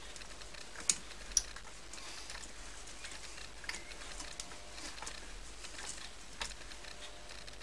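Light, irregular clicks and ticks as spring wire is wound onto a mandrel in a slowly turning 7x12 mini lathe chuck. Two sharper clicks come about a second in.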